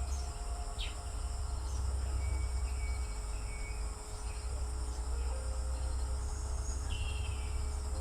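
Insects shrilling steadily at a high pitch, with a few short chirps and a steady low rumble underneath.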